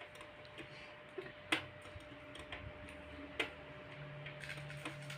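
Irregular light clicks and taps of plastic toy kitchen pieces being handled, the sharpest about a second and a half in and again about three and a half seconds in.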